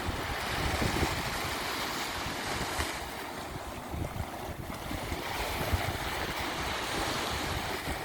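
Sea waves washing onto a beach: a continuous rush of surf that eases off around the middle and builds again.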